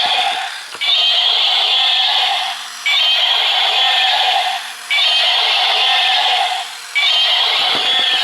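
Electronic walking Spinosaurus toy playing its recorded roar through its small speaker, the same loud roar looping about every two seconds and cutting off sharply each time.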